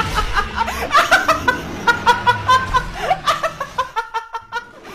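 A young woman laughing in a rapid string of short, high-pitched bursts, about five or six a second, that slow into separate bursts near the end.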